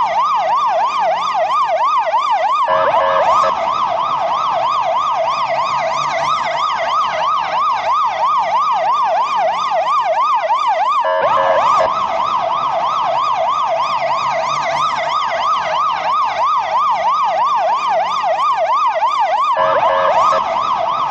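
Portuguese ambulance siren in a fast wail, its pitch sweeping up and down several times a second. It has a brief hitch roughly every eight seconds, where the sweep restarts.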